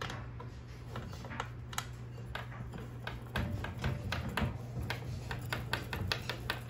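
Light, irregular clicking and ticking of small metal parts handled by hand on a steel turkey fryer stand, as screws and the braided gas hose fitting at the burner valve are fingered into place. The clicks come thicker about halfway through.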